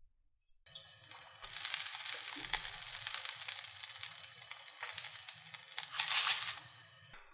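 Drops of water sprinkled on a hot frying pan sizzling with a steady hiss, the test that the pan is hot enough for cooking. The hiss builds in the first seconds and swells briefly near the end before dying away.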